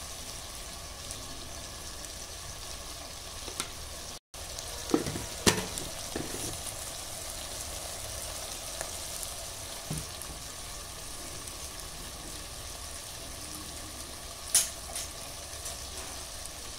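Steady sizzling hiss of spiced ingredients cooking in a clay pot on a gas stove, with a few short knocks. The sound breaks off for an instant about four seconds in.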